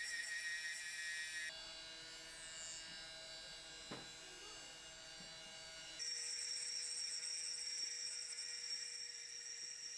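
Lathe with a milling cutter running, a steady high-pitched motor whine and hum while milling the porthole windows. The sound drops and changes abruptly about one and a half seconds in, grows louder again about six seconds in, and there is a single click near four seconds.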